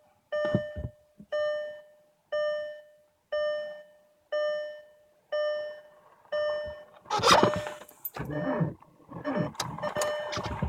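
Car dashboard warning chime dinging about once a second, eight times. About seven seconds in, the starter cranks the cold-soaked 1.9 TDI diesel engine in an attempt to start it at −40°.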